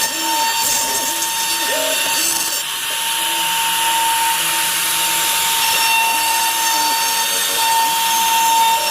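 CNC router spindle cutting wood on a roughing pass: a steady high whine over the hiss of the bit chipping through the stock. Lower tones underneath hold steady, then shift pitch every second or so.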